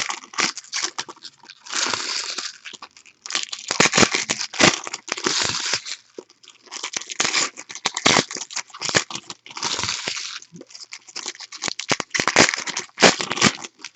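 Plastic-foil trading card pack wrappers being torn open and crinkled, in irregular rustling bursts with short clicks of handling.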